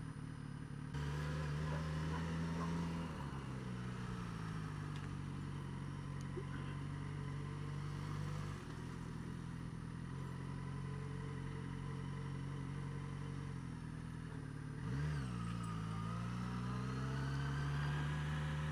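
Suzuki DRZ400SM's single-cylinder engine with a Lextek carbon exhaust, running while the bike is ridden at low road speed. Its note steps up about a second in and then eases back. Near the end it dips sharply and climbs again.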